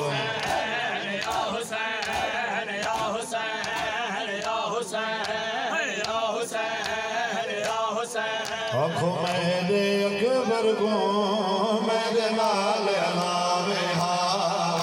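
A group of men chanting a Shia noha in unison, with rhythmic chest-beating (matam) striking about one and a half times a second. About nine seconds in, a voice holds one long steady note.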